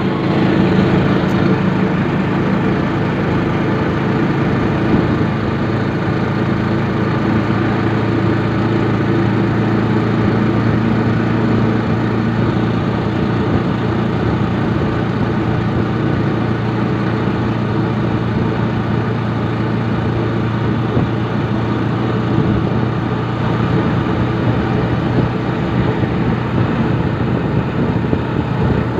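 Engine of a moving road vehicle running at a steady speed, with an even pitch, over road and wind noise.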